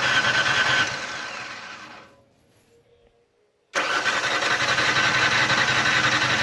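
2004 Ford Explorer's 4.0 V6 cranking on the starter without firing, in two attempts. The first crank winds down about two seconds in. After a short silence the starter cuts in abruptly for about three more seconds of cranking and winds down near the end. The engine cranks but will not start, despite a new fuel pump and new crank and cam sensors.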